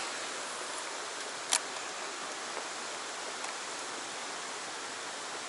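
Fast-flowing stream water rushing steadily, with a single sharp click about a second and a half in.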